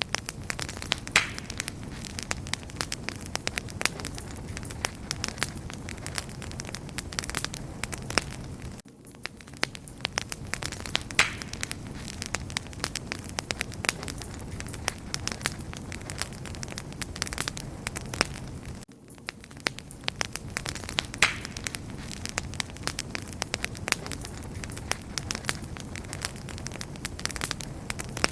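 Campfire crackling: a dense run of sharp pops and snaps over a low, steady rush of flame. The same stretch of crackling repeats about every ten seconds, with a brief dip in level at each join.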